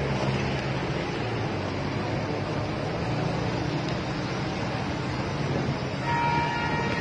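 Traffic wading through a flooded road: vehicle engines run under a steady wash of noise. A vehicle horn sounds near the end.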